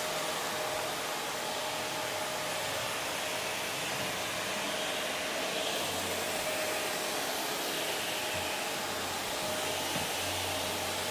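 Vacuum cleaner motor running steadily: an even rush of air with a thin steady whine over it.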